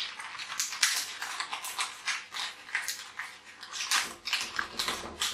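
Paper banknotes rustling and crackling as a wad of notes is handled and leafed through, a quick run of crisp rustles several times a second.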